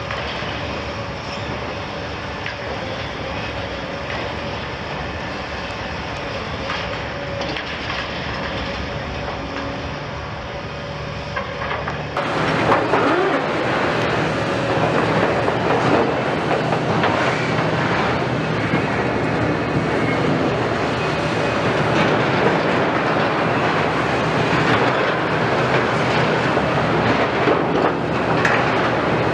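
Liebherr R 974 crawler excavator tracking over rubble, its steel tracks clanking and rattling over the diesel engine. The sound grows louder and harsher about twelve seconds in, with many short knocks.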